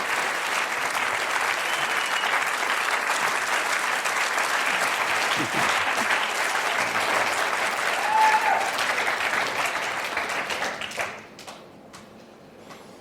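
Congregation applauding, a dense steady clapping that dies away about eleven seconds in.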